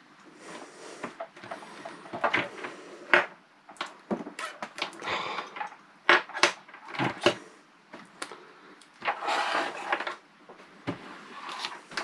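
Hands handling a ribbon cable's wire ends and a Raspberry Pi Zero board: irregular clicks, taps and rustling.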